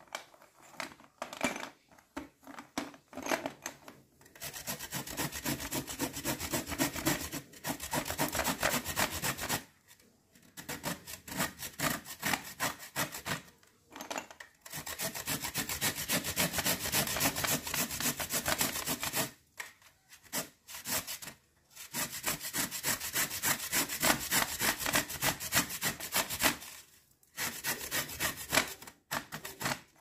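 Chalk sticks grated on a stainless-steel box grater: fast scraping rasps in long runs of several seconds, broken by short pauses. Scattered separate taps and scrapes in the first few seconds and near the end.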